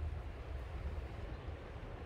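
Small sea waves lapping over a rocky, pebbly shore in a steady wash, with wind rumbling on the microphone underneath.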